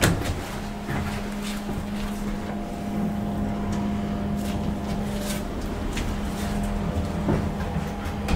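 KONE MonoSpace machine-room-less traction elevator car travelling between floors: a steady hum at one even pitch, with a few light clicks, one of them near the end.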